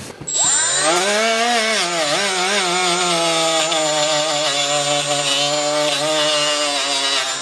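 Cordless die grinder set to about 15,000 RPM spinning up with a rising whine. Its pitch then drops and wavers as the Scotch-Brite pad is pressed onto a painted metal vise part to strip the green paint. It runs steadily under load and cuts off at the end.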